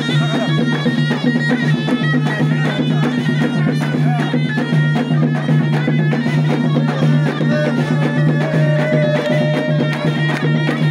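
Loud live traditional folk music: a bagpipe-like reed pipe holds a steady low buzzing tone under a wavering melody, over fast drum beats.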